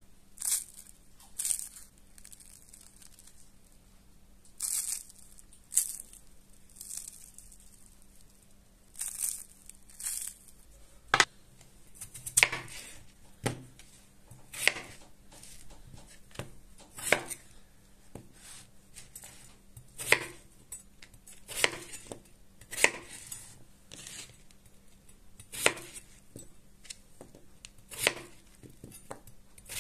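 A crisp fried potato snack pulled apart by hand, its crust crackling in short bursts. Then a kitchen knife cuts peeled raw potatoes into chunks on a wooden cutting board, one knock roughly every second or so.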